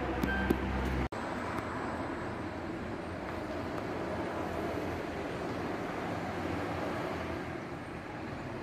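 Steady road traffic noise of vehicles passing on a street, with a city bus driving by. A brief cut-out in the sound about a second in.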